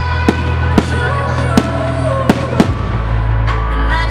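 Aerial firework shells bursting, five sharp bangs within the first two and a half seconds, over loud accompanying music.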